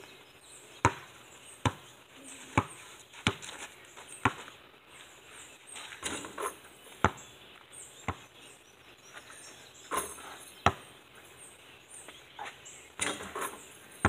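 A basketball bouncing: sharp bounces about once every 0.8 s for the first few seconds, then a handful of scattered bounces.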